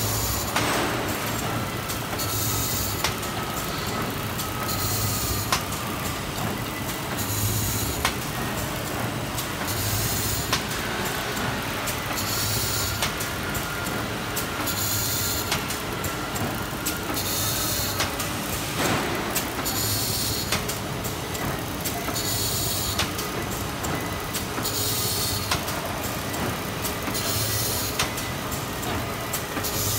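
CHOVYTING CW-800HCB isothermal bag cutting machine running continuously, with a faint steady whine and a short hiss and low pulse about every two and a half seconds as it cycles.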